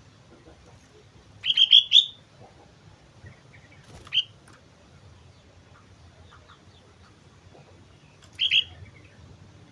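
Sooty-headed bulbul (kutilang) calling in short bursts of bright notes: a quick run of notes about one and a half seconds in, a single rising note around four seconds, and a brief pair of notes near the end.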